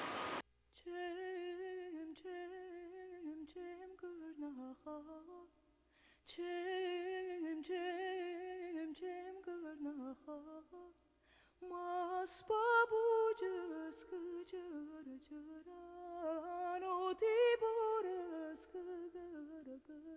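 A voice humming a slow, wordless, wavering melody in three long phrases, unaccompanied, with faint clicks scattered through it.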